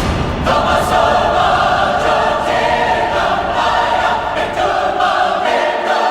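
Music with a choir singing held chords, played loud and steady.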